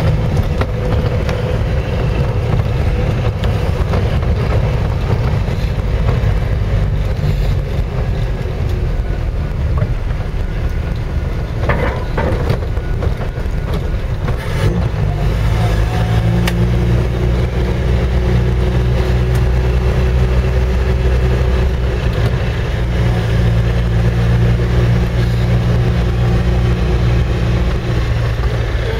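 Land Rover Series III engine and drivetrain noise heard from inside the cab while driving: a steady low drone, which settles into a steady engine note at constant pitch about halfway through.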